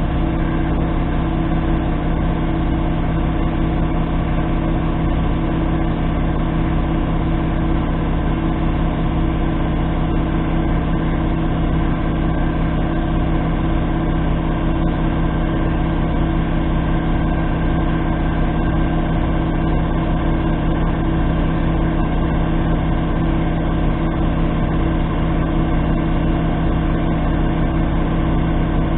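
A steady engine drone at an even idle, with a constant pitch and no revving.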